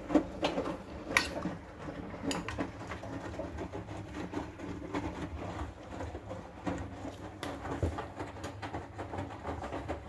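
Hoover H-Wash 500 front-loading washing machine in its final rinse: the drum turning with water sloshing and wet laundry tumbling and splashing, over a steady low motor hum.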